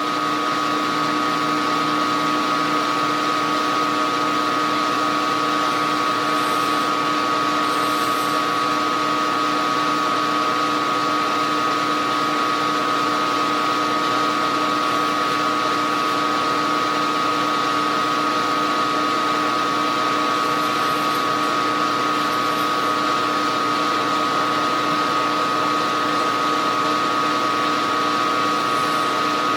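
Small milling machine's spindle running at a steady speed, drilling out counterbores with a 0.110 in drill, a constant whine over a mechanical hum with no change in pitch.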